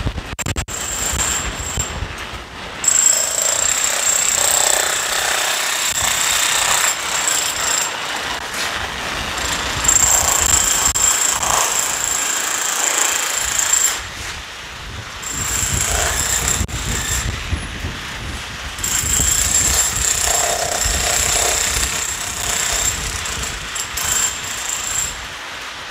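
Loud, rapid mechanical hammering that starts and stops abruptly in bursts of a few seconds each, the longest about six seconds near the end, with street noise in the gaps.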